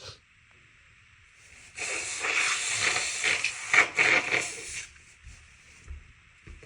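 A person blowing their nose: one long noisy blow lasting about three seconds, starting about two seconds in, with a few surges in force.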